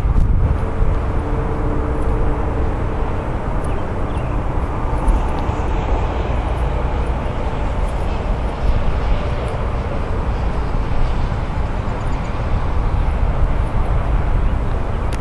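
Steady low rumble of wheels rolling over smooth concrete, with wind buffeting the microphone.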